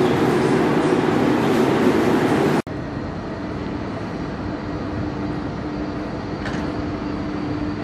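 Electric train at a station: a loud, dense rumble from close by, then, after an abrupt cut about two and a half seconds in, a quieter steady hum from an electric locomotive hauling passenger coaches across the tracks.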